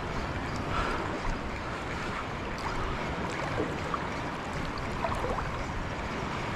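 Steady rushing of moving water with scattered small splashes and clicks.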